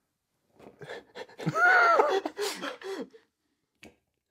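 A man's high-pitched wordless vocal sound, rising and falling for about two seconds, with a short click near the end.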